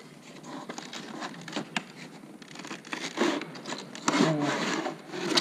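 A cardboard box and its plastic packaging being opened and handled on a wooden table: scattered taps, scrapes and rustles, busier in the second half.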